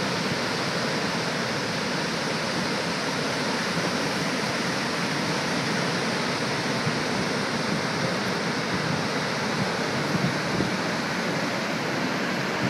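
Niagara's Horseshoe Falls, heard from the brink: a huge volume of water pouring over the edge and crashing into the gorge, a steady, unbroken rushing noise.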